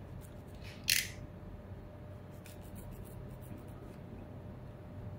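Pen knife cutting into a foam case insert: a short hissing slice about a second in, then a few faint scratchy strokes.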